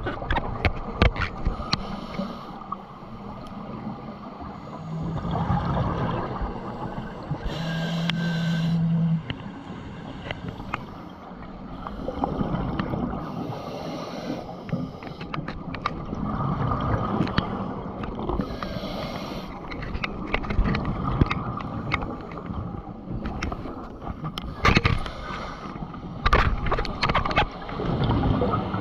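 Scuba diver breathing underwater through a regulator: a hiss on each inhalation, returning every five seconds or so, and between them the gurgling rumble of exhaled bubbles, with many small clicks and crackles in the water throughout. A short low hum sounds twice, about five and eight seconds in.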